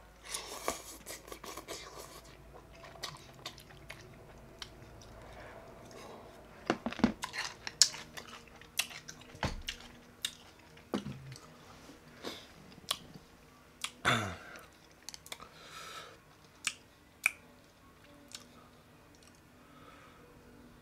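A person eating ramen noodles in spicy soup close to the microphone. A soft slurp comes near the start, then chewing with irregular wet mouth smacks and clicks.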